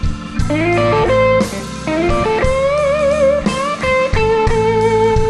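Live blues band playing, with an electric guitar lead filling the gap between sung lines. It bends notes up, wavers on a held note about halfway through, and holds a long steady note near the end, over the band's backing.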